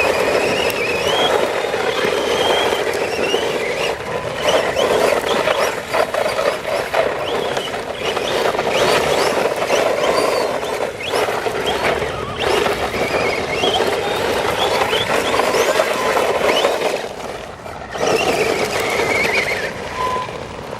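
Brushless Traxxas Stampede 4x4 RC truck driving hard on a dirt road: its electric motor's whine rising and falling with the throttle over the steady scrabble of tyres on loose dirt, with a brief lull near the end.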